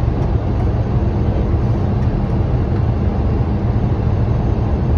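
Steady, loud rumble of airflow and engines heard inside the flight deck of a Boeing 737 during landing.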